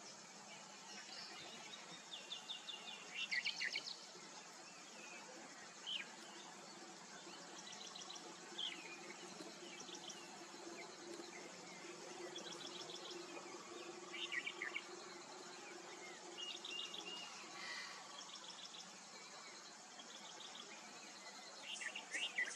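Wild birds chirping and calling in short, scattered bursts of high chirps and trills, loudest about three seconds in and again near the end, over a steady outdoor hiss with a faint low hum through the middle.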